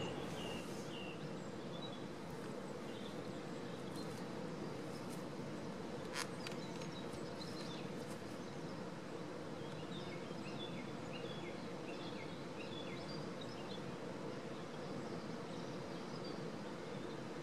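Outdoor ambience: small birds chirping on and off, most busily in the second half, over a steady low rushing noise with a faint even hum. A single sharp click about six seconds in.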